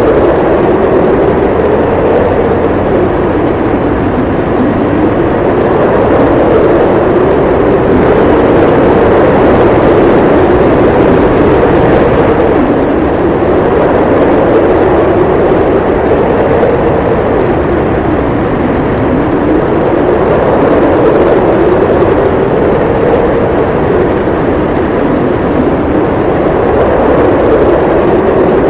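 Howling blizzard wind: a loud, continuous rush of noise with a moaning pitch that slowly rises and falls every few seconds.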